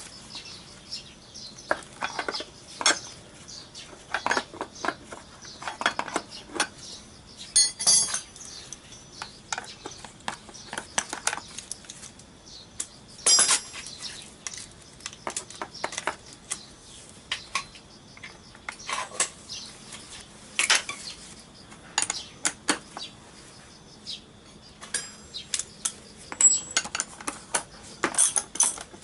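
Irregular metallic clinks and knocks of a socket wrench with a long extension working the kick-start arm bolt on a scooter engine, as the kick arm is being removed.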